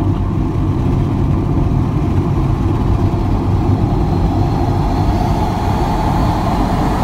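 Car travelling at highway speed, heard from inside: a steady low rumble of tyre and engine noise.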